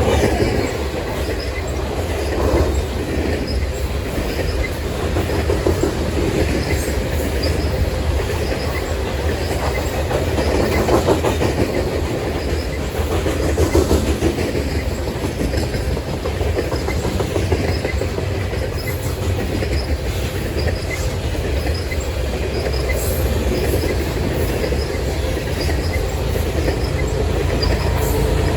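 Canadian Pacific grain train's cars rolling past: a steady rumble with wheels clicking over the rail joints.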